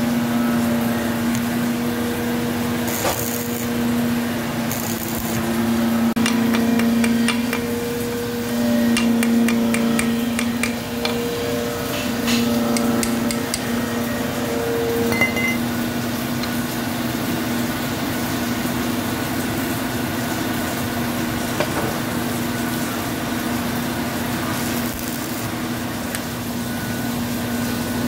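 Metal hand tools tapping on a welded-up broken bolt in an engine cylinder head: a run of quick, uneven metal taps, with a steady machine hum underneath.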